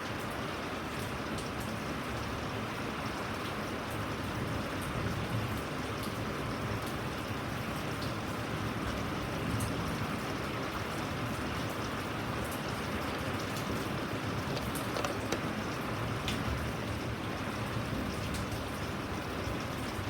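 Steady rain falling, with individual drops ticking here and there over an even hiss.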